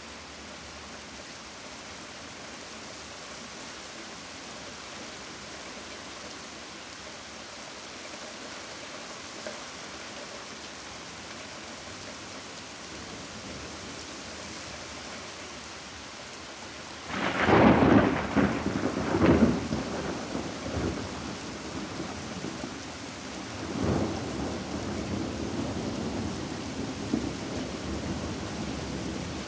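Steady rain hissing, then a little past halfway a sudden loud clap of thunder that rolls on in rumbles, with a second swell of thunder a few seconds later.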